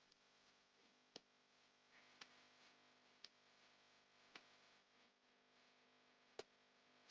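Near silence: faint room tone with five sharp, faint clicks, spaced about one to two seconds apart.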